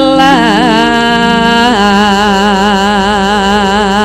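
Javanese singing with gamelan accompaniment: a voice holds long notes with wide vibrato, sliding down to a lower held note a little under two seconds in, over steady sustained instrumental tones.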